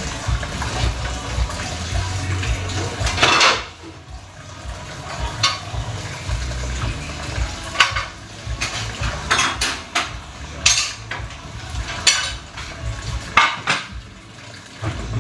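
Running tap water that stops about three and a half seconds in, followed by dishes and cutlery being handled and clattering, a series of sharp separate clinks.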